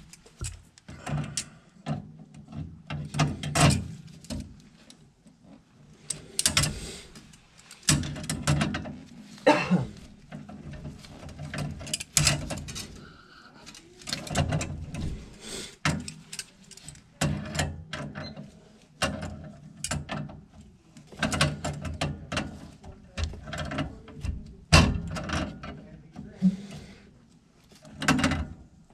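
Hand tools working on metal gas piping and fittings: irregular clanks, clicks and scraping, some in quick ratchet-like runs, over a steady low hum.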